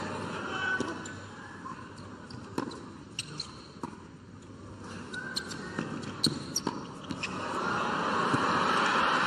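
Tennis rally on a hard court: sharp pops of the ball off the rackets and the court, coming in quick succession in the middle of the rally. Crowd noise swells near the end.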